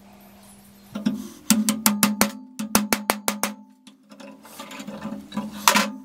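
Cordless drill/driver working on the rusty steel bell housing: a quick run of sharp clicks, about six a second, that pauses briefly and starts again, then the drill running rougher, with one loud scrape near the end.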